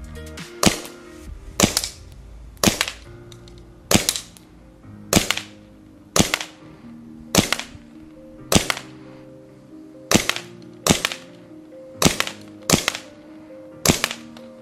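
WE Colt 1911 gas blowback airsoft pistol firing in semi-auto, about thirteen shots at roughly one a second. Each shot is a sharp crack with the slide's blowback clack close behind it.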